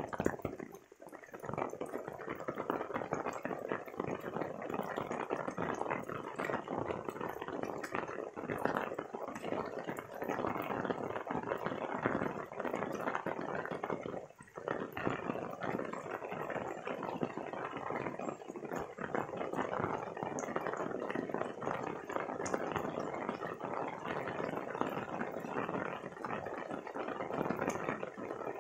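Steady rain falling, a dense patter of drops, with two brief dips in level: about a second in and about halfway through.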